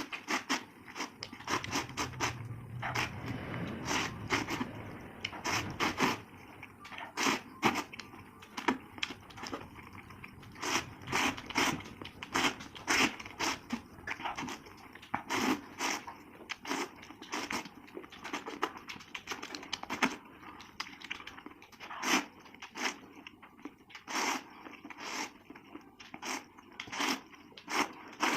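Close-miked eating: crisp, crunchy bites and chewing, sharp crunches coming irregularly one to several a second, with a faint low hum in the first few seconds.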